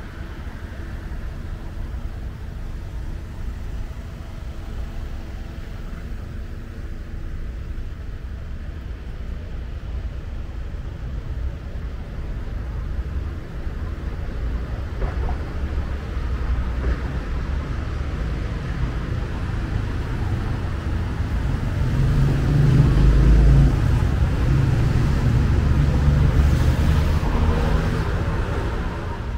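City street traffic: cars running past with a steady low rumble, louder for the last quarter as heavier traffic goes by.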